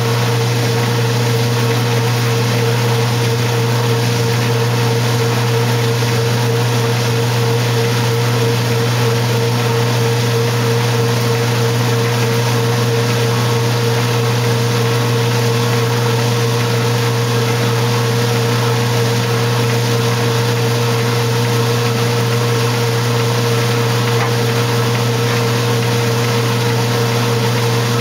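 1968 Kenmore 900 Series washing machine running with a steady, unchanging motor hum.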